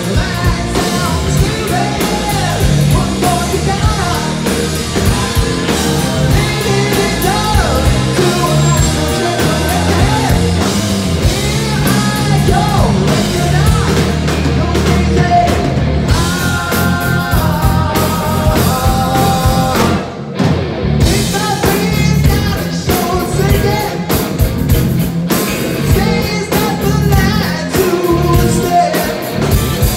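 Live rock band playing with singing: electric guitar, bass guitar and drum kit, loud throughout. The music breaks off for a moment about two-thirds of the way through, then comes back in.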